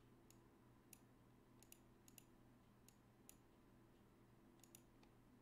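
Near silence with faint, sharp clicks at irregular intervals, about nine in all, some in close pairs.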